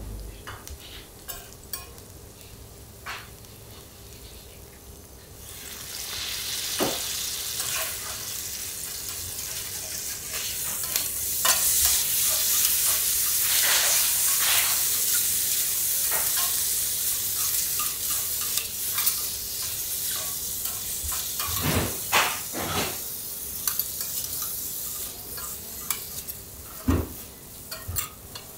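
Abalone sizzling on a hot teppanyaki griddle. The sizzle starts suddenly about five seconds in, grows loud, then slowly dies down, with a few sharp knocks of utensils on the griddle.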